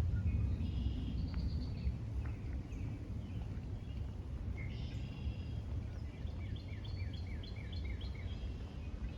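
Birds calling over a steady low rumble. After a few scattered chirps early on, a quick run of repeated short notes, about five a second, comes past the middle.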